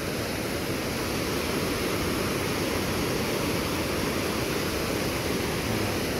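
Muddy water rushing and churning over a rocky weir below a dam, a steady even rush with no breaks.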